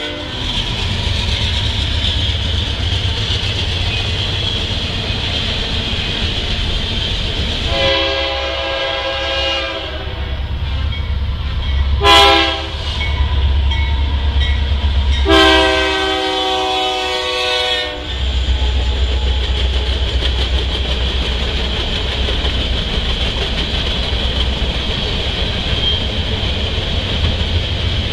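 Freight trains at a grade crossing: the steady rumble of a train rolling past, then a locomotive's air horn sounding a long blast, a short one and another long one, the crossing warning. After the horn, the rumble and wheel noise of freight cars passing resumes and holds steady.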